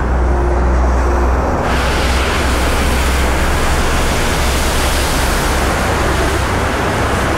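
A car driving fast through standing floodwater on the freeway, its tyres throwing up a wall of spray: a loud, steady rushing hiss that turns suddenly brighter and fuller about a second and a half in, over a steady low rumble.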